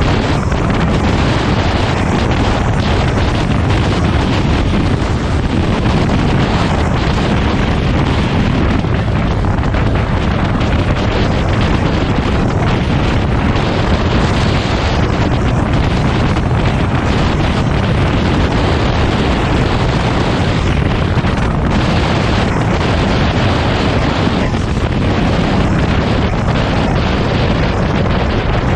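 Heavy wind buffeting the microphone: a loud, steady rush of noise that barely varies.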